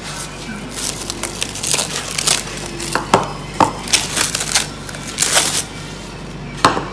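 Plastic cling wrap crinkling and crackling in quick, irregular bursts as it is peeled off a bowl of dough.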